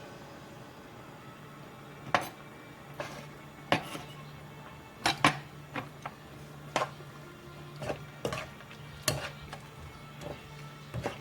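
Kitchen utensils and dishes clattering while cooking: a dozen or so irregular clinks and knocks, with a steady low hum underneath.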